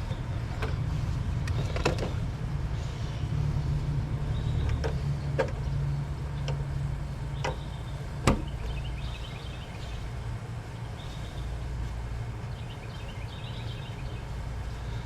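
Scattered sharp clicks and snaps of hands fitting wiring connectors and a circuit board into an air conditioner's control box, the loudest about eight seconds in, over a steady low background rumble.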